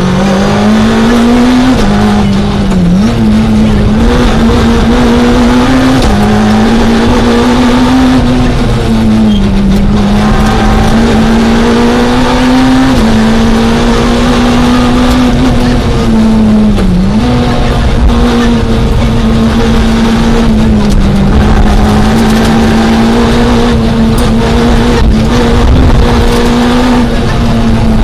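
Citroën Saxo rally car's four-cylinder engine at high revs, heard inside the cabin. The pitch dips briefly at gear changes several times, then climbs back as the car is driven flat out along a special stage.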